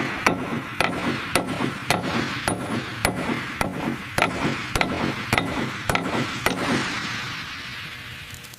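Hammer blows, evenly spaced at about two a second, over a steady hiss; the strikes stop about six and a half seconds in and the hiss fades away.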